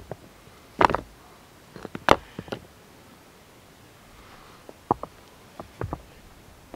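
Stones knocking against each other as rocks are set onto a stacked stone wall: a handful of sharp clacks, the loudest about one and two seconds in, with paired knocks near the end.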